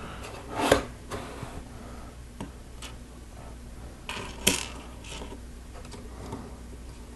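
Plastic Lego pieces clicking and knocking as they are handled and pressed together: a scattering of sharp clicks, loudest about a second in and again about four and a half seconds in.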